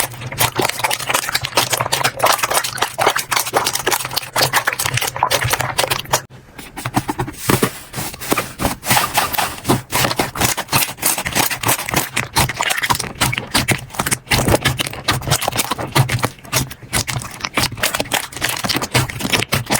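Slime being squeezed and worked by hand, a dense, continuous run of sticky clicks, pops and crackles, with a short pause about six seconds in.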